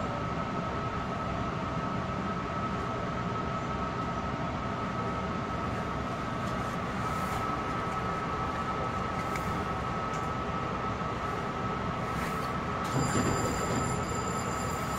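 Long Island Rail Road M3 electric multiple-unit car standing with doors closed: a steady hum of onboard equipment with a constant high-pitched tone. About thirteen seconds in, two higher whining tones join and a low rumble swells as the train begins to pull away.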